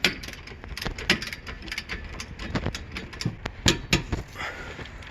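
Ratchet wrench clicking irregularly as a brake caliper mount bolt is tightened down.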